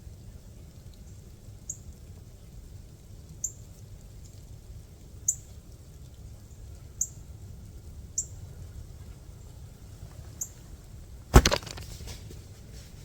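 A selfbow shot: one loud sharp snap of the string on release, near the end, followed by a brief scatter of smaller sounds. Before it, faint short high ticks come every second or two over a low steady hiss.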